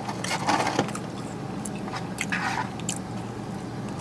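Close-up chewing and mouth sounds: soft wet clicks and squishes, mostly in the first three seconds.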